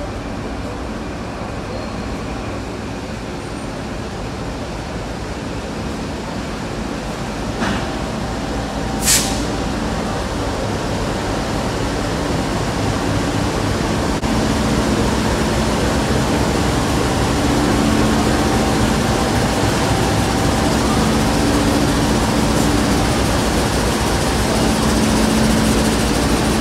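NR class diesel-electric locomotives hauling a train into the platform: a steady engine drone with wheel and rail noise, growing louder from about halfway through as the locomotives come close. A brief sharp hiss sounds about nine seconds in.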